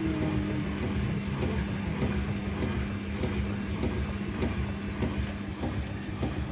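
Beko front-loading washing machine running, its drum turning a heavy, sudsy load: a steady motor hum under a low rumble, with the wet clothes thudding and knocking irregularly against the drum.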